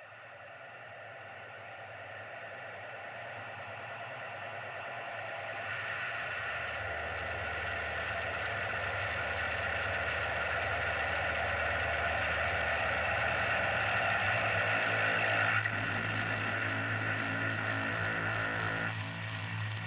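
Experimental noise-drone music: a dense, droning wash of hum and hiss with held tones that swells steadily louder, its texture shifting twice near the end.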